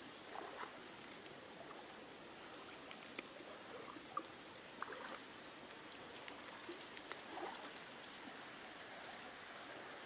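Faint, steady rush of running water, with a few scattered small clicks.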